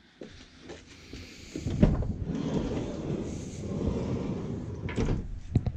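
A van door being opened: a clunk about two seconds in, then a rumbling scrape of the door moving, and two sharp clicks near the end.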